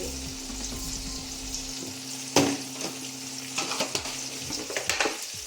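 Onion and capsicum sizzling in oil in a pan while being stirred. There is one sharp knock of the spoon against the pan about two and a half seconds in, and several lighter clinks near the end.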